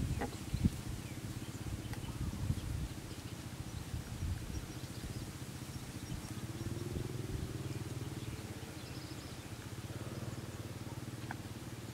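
Footsteps swishing through tall grass, loudest in the first few seconds and fading as the walker moves away, over a steady low hum from a distant engine whose pitch rises slowly about six seconds in. Faint bird calls.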